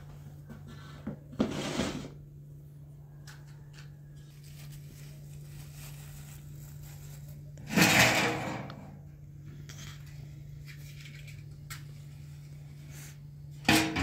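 Brief scraping, rustling handling noises during bread-making, three of them, the loudest about eight seconds in, over a steady low hum.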